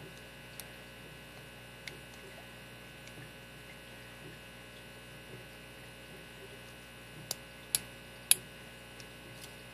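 Lock pick working the pins of a vintage 1974 Soviet padlock: a few faint metallic clicks, then three sharper clicks about half a second apart near the end, over a steady electrical hum.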